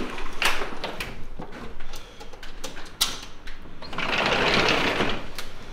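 Sliding glass balcony door and louvred shutters being opened, with sharp clicks and rattles from the latch and frame. About four seconds in, a rush of wind and surf noise comes in through the opening door.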